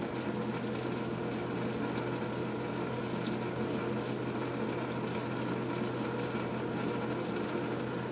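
Bosch Exxcel SMS63E09 dishwasher running at the start of its intensive cycle: a steady pump hum with water rushing inside the tub.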